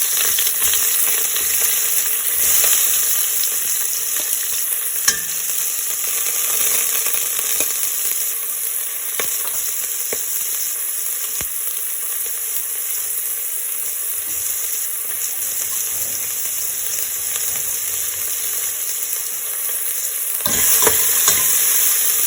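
Onion frying in hot sunflower oil in a pan: a steady sizzle with scattered sharp clicks of a utensil stirring. The sizzle and the clicks get louder near the end.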